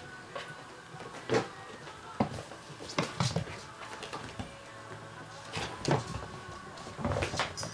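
Siberian kittens playing and jumping about on a wooden floor and furniture: scattered thumps and knocks, several close together, over faint steady background music.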